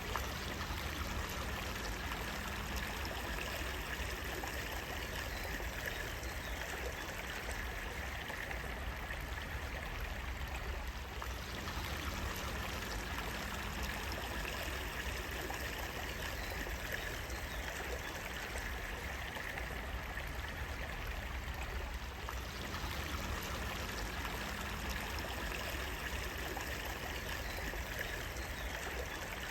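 Running water flowing steadily, an even, unbroken rush like a stream.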